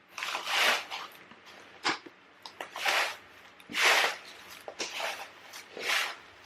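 Gravel or potting mix being scooped and tipped into a clay pot by hand, a series of short gritty rustles roughly once a second.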